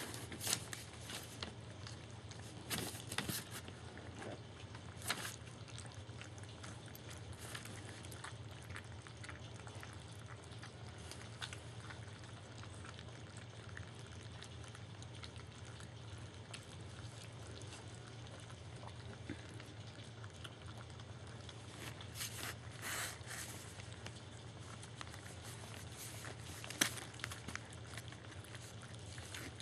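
Young German shepherd puppies lapping and slurping soft dog food from a shallow pan, with many small clicks and rustles of paws and muzzles on the pan and newspaper over a steady low hum. A few louder clicks and rustles come near the start and again near the end.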